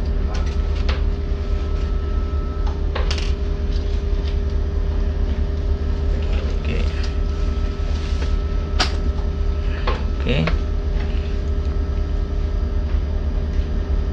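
Steady low hum of shipboard machinery with a steady tone above it. A few short clicks and knocks of a pen, paper and clipboard being handled come at scattered moments.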